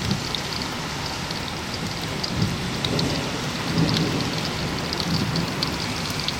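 Steady rain falling, with many small drop hits crackling through it and low rumbles swelling a few times.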